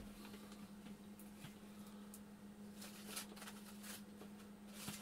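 Near silence: a steady low hum with a few faint ticks and rustles from small parts and paper being handled on the workbench, mostly in the second half.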